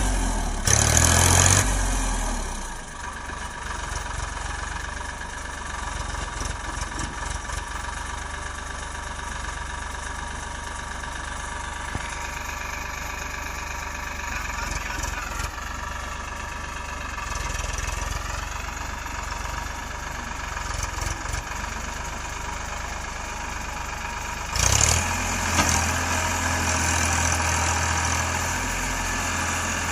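Diesel engines of a JCB 3DX backhoe loader and tractors running steadily near idle. The engines are louder in the first couple of seconds and again from near the end, as the machine works.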